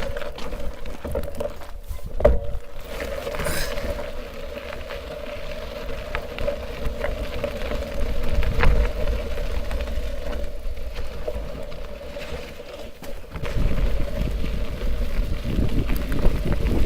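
Mountain bike rolling over coarse crushed-stone gravel: a continuous low rumble with scattered clicks and knocks from the stones under the tyres, over a steady hum. The rumble grows heavier a few seconds before the end.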